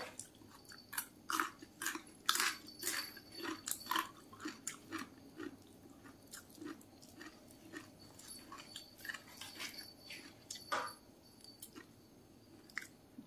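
A person chewing mouthfuls of food close to the microphone: irregular short clicks and smacks, thickest in the first few seconds, with a louder one near the end, over a faint steady hum.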